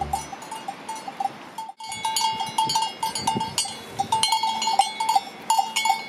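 Neck bells on grazing livestock clanking and ringing irregularly, many small strikes close together, with a brief gap a little under two seconds in.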